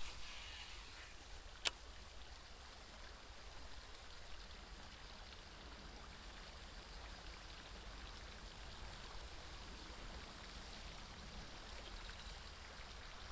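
Faint, steady outdoor hiss with a low rumble beneath, as a fishing rod is cast and the lure worked; a soft swish at the very start and one sharp click under two seconds in.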